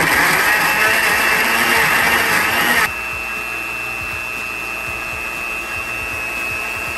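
Electric countertop blender switched on, its motor running steadily as it purées chunks of pear, onion and garlic into a marinade. About three seconds in it drops to a quieter, steadier high whine.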